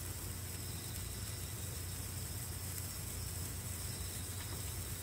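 Handheld spouting firework burning with a steady hiss, over a low rumble.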